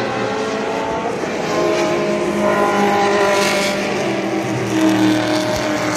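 Race car engines running on the circuit: a steady, continuous engine note whose pitch shifts up and down a few times as the cars go round the track.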